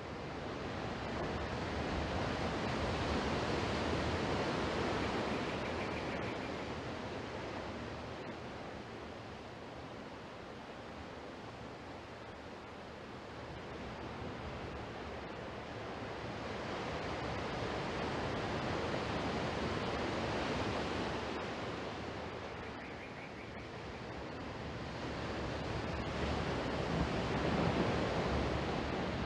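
Sea surf: a steady rush of waves that swells and falls away slowly, rising three times.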